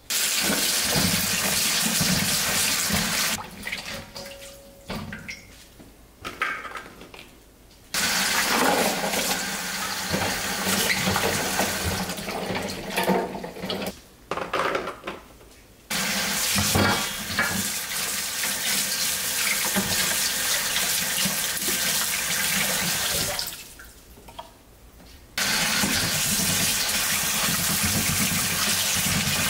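Water running hard from a tap into a sink or basin. It cuts off abruptly three times for a few seconds, and faint handling sounds fill the gaps before it comes back.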